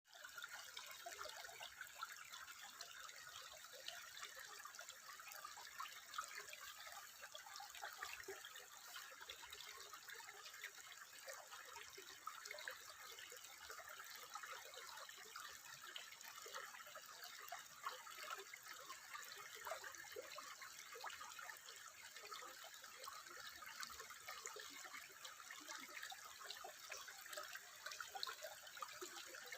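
Water trickling steadily, a continuous faint babble of many small splashes and drips with no single large splash.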